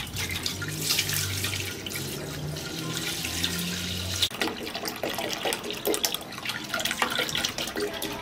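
Full-cream milk poured from cartons into a large non-stick pan, splashing steadily as the pan fills.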